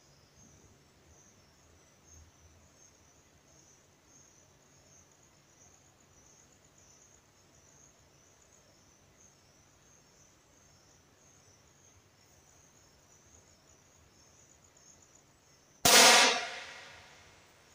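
Insects chirping faintly and steadily, then near the end a single sharp shot from a Precihole PX50 Match Pro air pistol, its report trailing off in a reverberant tail over about a second and a half.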